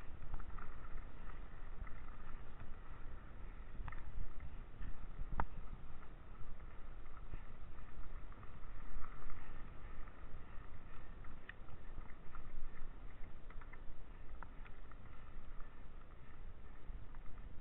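Low rumbling wind noise on an action camera's microphone during a mountain bike ride, with a few short clicks and knocks from the bike.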